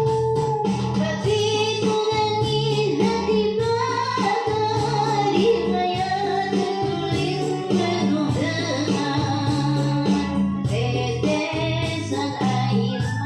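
A song with a woman singing over keyboard accompaniment and a steady beat.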